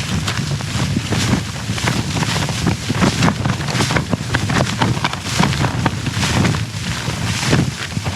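Strong gusty wind buffeting a tent, the fabric flapping and snapping irregularly over a steady low rumble.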